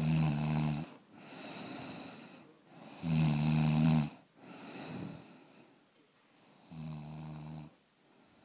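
Snoring in a steady rhythm: three loud, low, buzzing snores about three seconds apart, each about a second long, with softer breaths between them.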